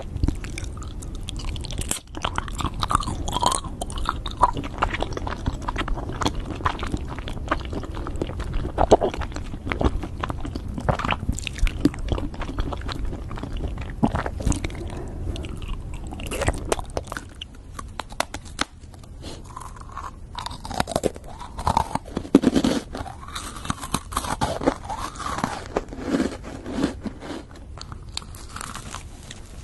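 Close-miked eating: wet biting and chewing of skewered grape jelly balls, with crunchy mouth noises. Later it turns to biting into a macaron.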